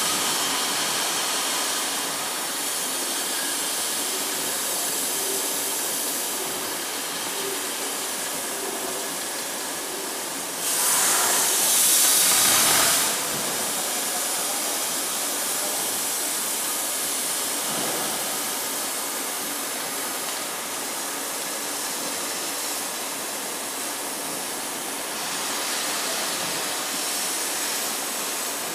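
CNC plasma torch cutting metal plate: a steady hiss from the plasma arc, with a louder, sharper hiss lasting about two seconds a little over a third of the way in.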